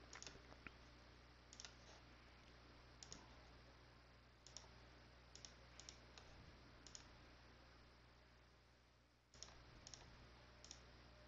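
Faint computer mouse clicks, about a dozen spaced irregularly, over a faint steady low hum.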